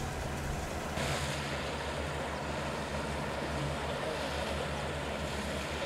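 Outboard motor of an inflatable boat running steadily under way, a low even hum over a rushing noise, which changes abruptly about a second in.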